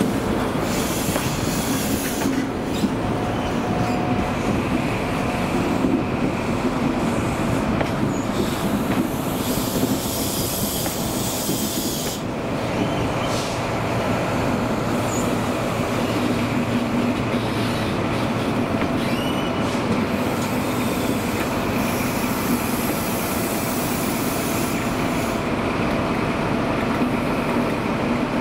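HST passenger train running at speed: a steady rolling rumble of the wheels on the rails, with a few short high wheel squeals.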